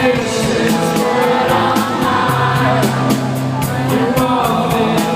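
Live band performing a rock song: singing over sustained instruments and a steady drum beat.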